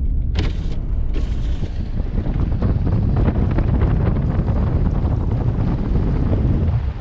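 Wind buffeting the microphone of a camera held out of a moving car's window: a heavy, steady low rumble of wind and driving noise. Two brief high hissing rushes come in the first two seconds.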